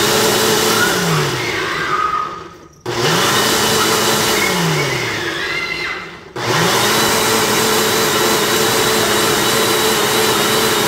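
Countertop blender motor running its timed smoothie program on a single-serve cup of mango mixture. It runs in spurts, slowing and stopping briefly about three and six seconds in and spinning back up each time, then runs steadily.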